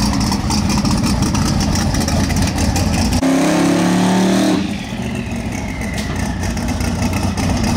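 Turbocharged pro mod drag car engine idling roughly, with a brief louder, higher note a little past the middle, then quieter as the car moves away.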